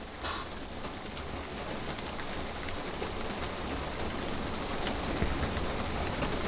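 Steady rain, slowly getting louder, with a low rumble underneath.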